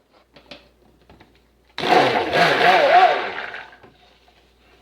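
Stick blender motor running in a burst of about two seconds, starting about two seconds in, its pitch wavering under load as it mixes lye solution into the oils for cold process soap.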